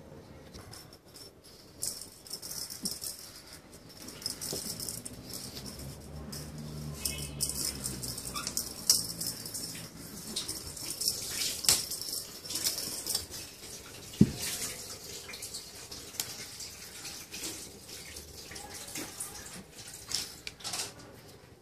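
Small ball toy on a string rattling and clicking as a cat paws and bats it across a tiled floor: a run of quick irregular rattles with a few sharper knocks.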